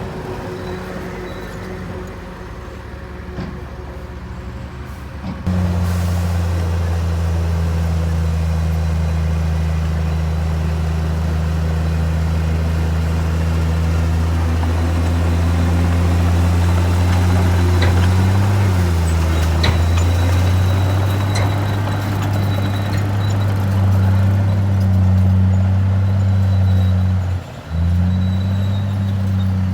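Komatsu D58E-1 bulldozer's diesel engine running under steady heavy revs with a low, even drone. The engine comes up abruptly about five seconds in, dips briefly around two-thirds of the way through, and cuts out for a moment near the end.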